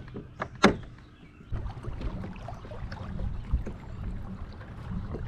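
Kayak on the water: a sharp knock on the hull less than a second in, then a steady low rumble with small ticks and splashes from about a second and a half in.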